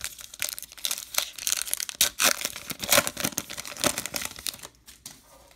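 Baseball card pack wrapper being torn open and crinkled in the hands: a dense run of crackling that stops about four and a half seconds in.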